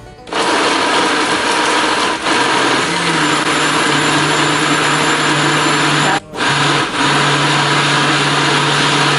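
Countertop blender running loud and steady, blending avocado, milk and ice into a smoothie. It cuts out briefly a little past six seconds in, then runs on.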